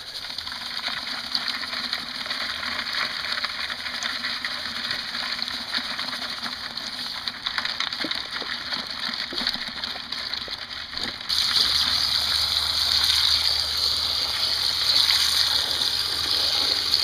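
Salt being poured over live crayfish in a plastic bucket, with a steady scratchy crackle as they move about in it. About eleven seconds in, a garden hose starts running water into the bucket to purge them, a louder steady gushing and splashing.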